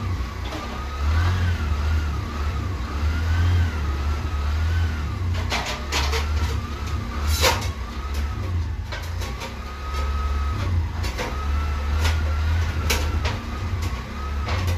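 A steady low engine rumble with a wavering whine above it, and a few sharp metallic snips from hand shears cutting galvanized steel sheet, the sharpest about seven and a half seconds in.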